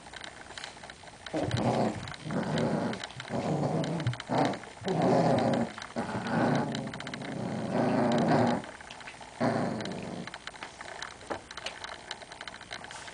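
Small dogs growling in play while tugging at a blanket: a run of growls, each about a second long, starting about a second in and ending about ten seconds in, with a short pause near the end.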